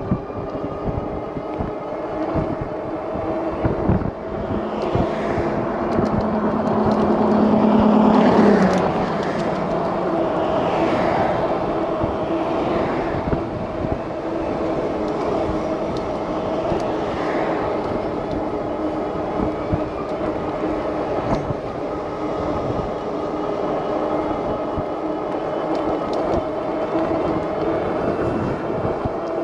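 Lectric XP e-bike riding along a road: its hub motor gives a steady whine over wind noise on the microphone. A passing vehicle swells louder about eight seconds in.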